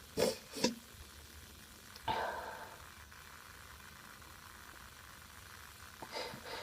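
A woman stifling sneezes: two quick, muffled bursts of breath in the first second and another about two seconds in, with faint ones near the end.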